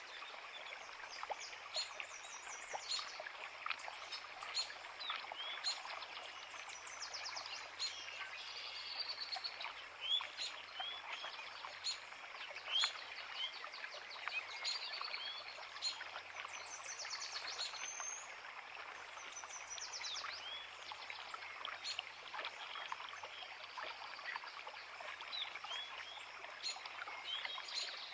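Forest creek running steadily, with several small birds singing over it in short chirps and quick trills.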